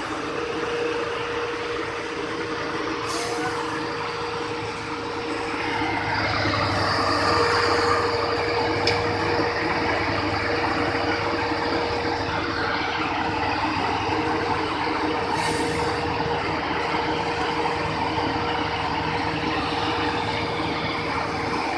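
Road construction machine running steadily, its engine noise carrying a constant whine, with two short hisses, about three seconds in and again near fifteen seconds.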